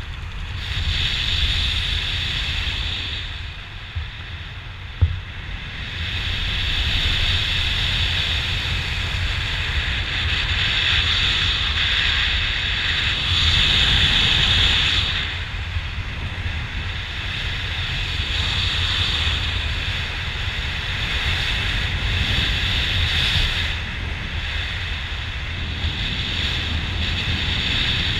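Wind rushing over a helmet camera's microphone during a descent under an open parachute, swelling and easing every few seconds. A single sharp click about five seconds in.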